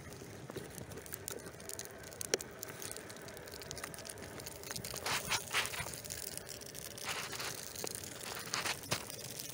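Cardboard model truck burning: flames crackling and hissing, with a sharp pop about two seconds in and louder bursts of crackle in the second half.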